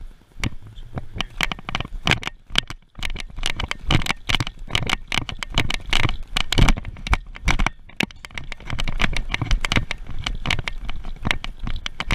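Dense, irregular knocking, scraping and crackling from a body-worn action camera jostling as its wearer runs and climbs a wall, mixed with footsteps and hands on the wall.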